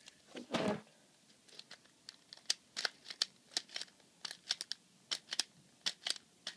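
Irregular sharp plastic clicks and rattles as the parts of a toy sonic screwdriver are twisted and worked by hand, with a short vocal sound just after the start.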